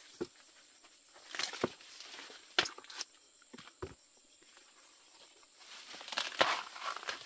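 Corn leaves and husks rustling, with several sharp snaps and cracks as ears of green corn are broken off the stalks by hand. The rustling is thickest near the end, around one loud snap.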